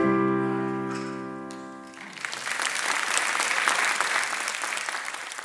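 A final chord struck on a grand piano and left to ring, fading over about two seconds, then an audience applauding.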